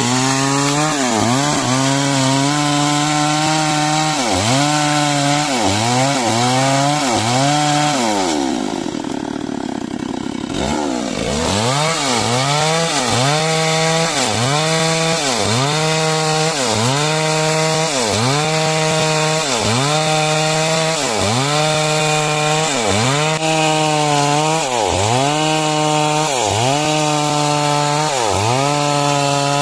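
Chainsaw cutting timber into beams under load, the engine pitch dipping and recovering about once a second as the bar works through the cut. About eight seconds in it falls toward idle for a couple of seconds, then revs back up and carries on cutting.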